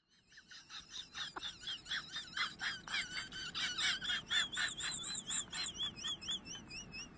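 Animal calls: rapid, even chirping about four times a second, with a wavering high whistle over it that grows clearer midway. The chirping fades in over the first second.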